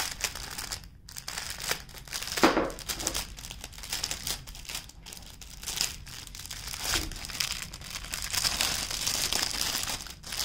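Clear plastic bags crinkling and rustling irregularly as hands open a bag and shift the small packets of diamond painting drills inside.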